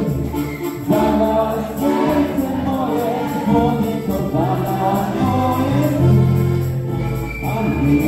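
Live band music: several voices singing together over acoustic guitar, a bass line and a steady beat.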